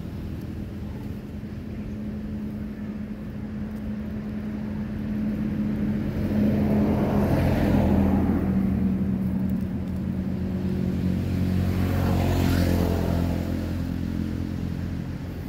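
Motor vehicle engines: a steady low hum, with two louder passes that swell and fade, one about seven seconds in and another about twelve seconds in.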